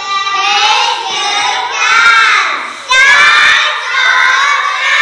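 Young children singing a song together, loud, in long held notes, with one child's voice close on a microphone.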